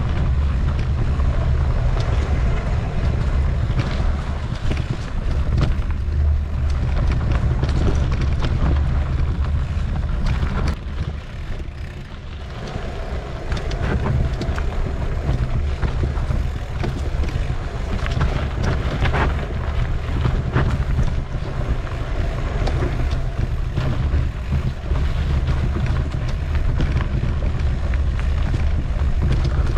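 Wind buffeting the microphone of a rider on a mountain bike, a loud steady low rumble, mixed with scattered clicks and rattles from the bike on a rough trail. The rumble eases briefly about twelve seconds in.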